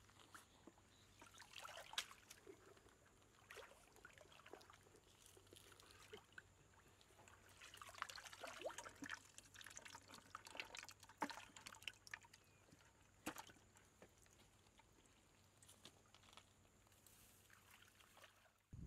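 Faint splashing and dripping of shallow stream water around a woven bamboo basket, with scattered small knocks. About 8 to 11 seconds in there is a busier run of splashes and knocks as fish are tipped from the basket into a plastic bucket.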